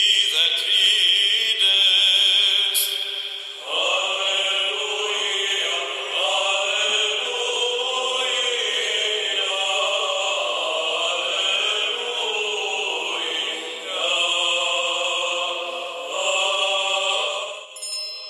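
Church choir singing a slow Orthodox liturgical chant with long held notes; the sound fills out with more voices about four seconds in.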